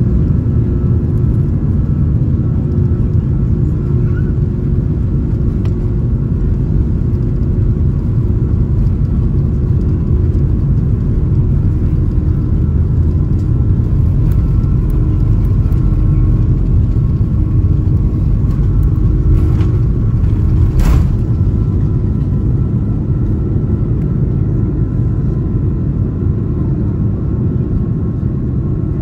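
Jet airliner engines heard from inside the passenger cabin: a loud, steady low rumble with faint steady tones above it. A single sharp click about two-thirds of the way through.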